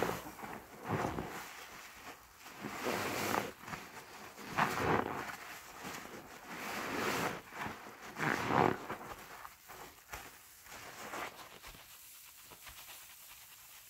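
A yellow HDX sponge soaked in thick soapy foam is squeezed and pressed by hand, giving wet squelching swells of suds every second or two. After about nine seconds it turns to softer, smaller foam sounds.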